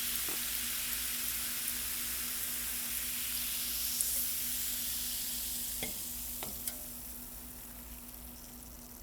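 Steady sizzling hiss with a few scattered crackles over a faint constant hum, fading down over the last couple of seconds.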